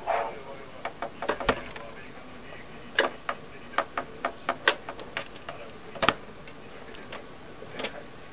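Light, sharp clicks and taps at an irregular pace, sometimes several in quick succession and sometimes a second or more apart.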